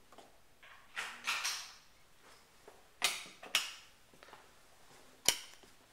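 Hanging clothes and hangers brushed aside, giving a few short bursts of rustling and clatter, then a single sharp click near the end.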